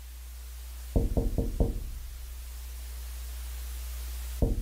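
Four quick knocks on a window about a second in, with a second run of knocks starting near the end. Under them are a steady low hum and a slowly swelling hiss that cuts off as the second knocks begin.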